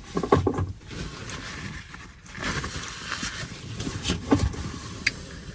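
A woman's wordless vocal reaction to a strong ginger probiotic shot: short groans and breathy exhales.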